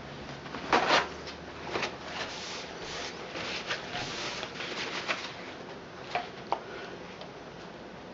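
Rubber-gloved hands handling things on a plastic-covered table. The plastic sheet and a paper towel rustle, with a few light knocks and clicks, the loudest about a second in.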